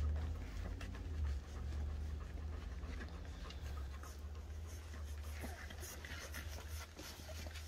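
Two-week-old golden retriever puppies nursing and shuffling against their mother on a quilted pad: soft scratchy rustling and small clicks, with the mother dog panting, over a low steady hum.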